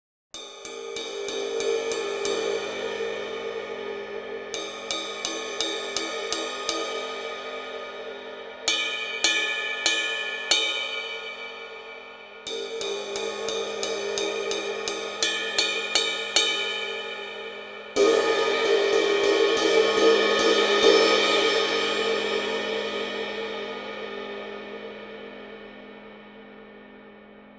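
A 20-inch B20-bronze ride cymbal (Zarcon EVO) played in several runs of quick, even strokes, its ringing wash building under each run. About 18 seconds in it is struck hard and left to ring, the wash swelling and then slowly dying away.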